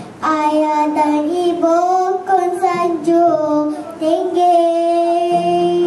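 A young child singing a solo line of a Malay dikir chant into a handheld microphone, moving between drawn-out notes and ending on one long held note.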